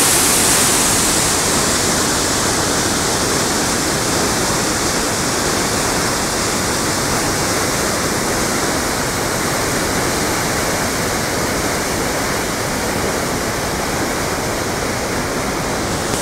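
Floodwater churning and rushing through a river dam: a loud, steady roar of water, hissiest in the first couple of seconds and then even.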